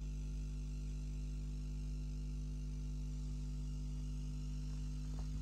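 Steady electrical mains hum: a low, unchanging drone with a stack of evenly spaced overtones.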